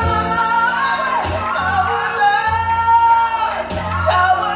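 Gospel worship music: a woman singing long, held notes with vibrato into a microphone over instrumental backing with a steady bass line.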